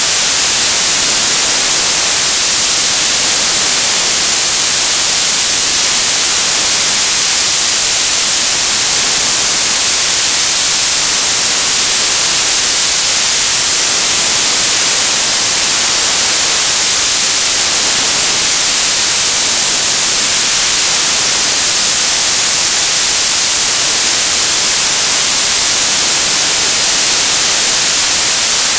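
Television static: a steady, loud hiss that is strongest in the high frequencies, without breaks or changes.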